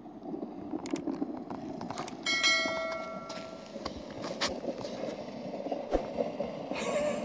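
Plastic sled scraping and hissing steadily down a packed-snow road. A bright bell ding from a subscribe-button overlay, following mouse-click sounds, rings out about two seconds in and fades over about a second.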